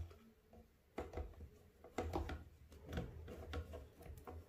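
Quiet handling noises: scattered light clicks, taps and soft knocks as a tarantula's cup and enclosure are moved and handled.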